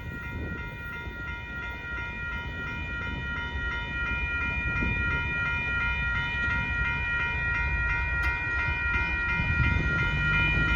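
Amtrak passenger train rolling through a grade crossing, its rumble growing steadily louder, under the steady ringing of the crossing's warning bell.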